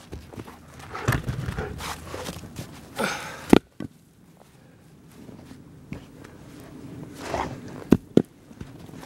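Footsteps crunching in snow, with rustling as logs are handled, and a few sharp knocks: one about three and a half seconds in and two close together near the end.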